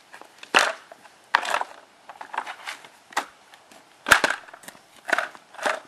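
Polypropylene plate lock strips being set down around a steel road plate: about six sharp plastic knocks and clacks, the loudest about four seconds in.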